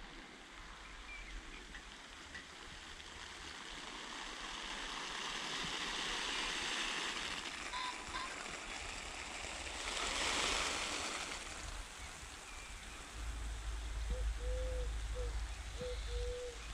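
Spray from a Skrab oscillating garden sprinkler, drops hissing as they fall on the soil. The hiss swells and fades as the spray sweeps back and forth, loudest about ten seconds in.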